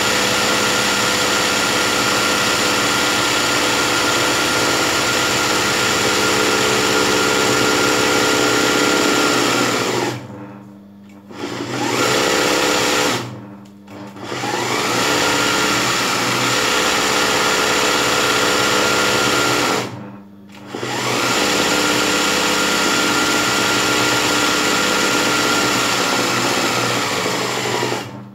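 Electric sewing machine running steadily while stitching dense satin-stitch embroidery. It stops three times, about ten, thirteen and twenty seconds in, and starts up again each time; its motor's whine falls away into each stop and rises again after it.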